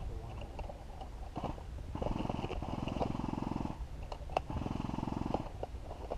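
Airsoft electric rifle firing on full auto: a rapid buzzing rattle in two bursts, the first about a second and a half long, the second shorter near the end. A few sharp single cracks come between them.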